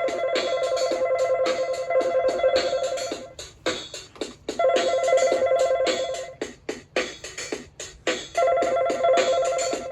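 Children's electronic keyboard playing its telephone-ring sound effect: a fast warbling ring in three bursts with short gaps between, over a quick clicking beat.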